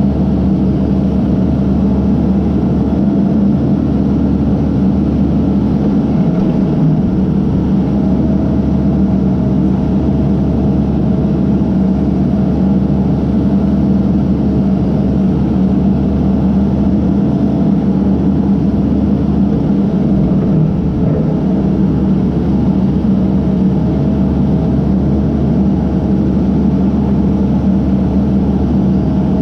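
Case backhoe's diesel engine running steadily at working speed.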